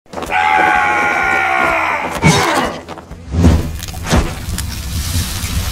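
Intro sound effects for an animated logo: a long held tone that falls slightly for about two seconds, then sudden hits and sweeping whooshes, then a steady low rumble.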